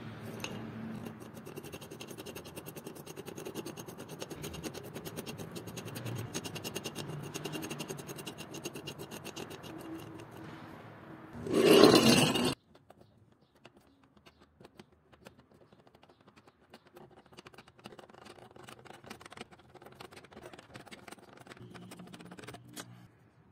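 A restored screw-type car jack being cranked, its screw and gears turning with a steady run of fine rapid clicks. About twelve seconds in comes a short loud scrape as the jack is pushed along the concrete floor into place under a car, followed by quieter clicking as it is cranked up against the car.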